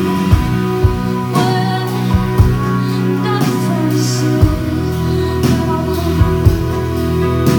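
Acoustic guitar strummed live in a song, chords ringing under sharp accented strokes every half second to a second.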